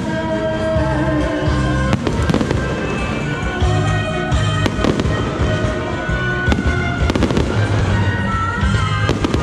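Aerial fireworks going off in scattered sharp bangs, with bursts of crackling about two seconds in and near the end, over loud music with a steady bass beat.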